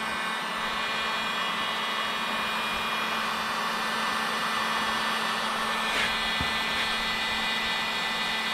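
A DeWalt heat gun running steadily: an even rush of blown air with a fan-motor whine made of several steady high tones.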